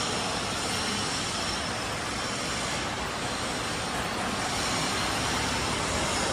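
Steady, even rushing noise of a large factory hall, with no distinct knocks, strikes or voices.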